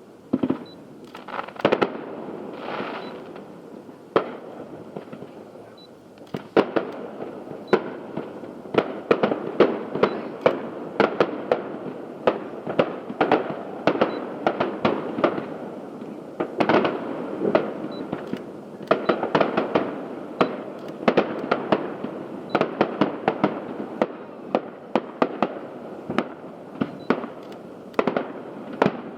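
Fireworks show: aerial shell bursts and crackling, a few scattered bangs at first, then from about six seconds in a rapid, dense barrage of overlapping reports.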